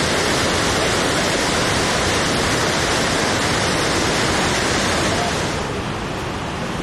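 Iguaçu Falls waterfall's steady, dense roar of falling water. About five and a half seconds in it cuts to a quieter, duller background hiss.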